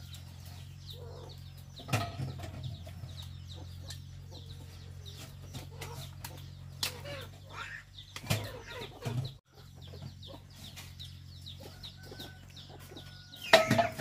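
Chopsticks stirring and scraping noodles in a metal wok over a crackling wood fire, with chickens clucking in the background. A loud knock comes just before the end.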